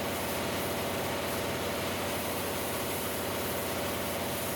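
Air compressor running steadily for a sandblasting setup: an even machine hum with a hiss over it.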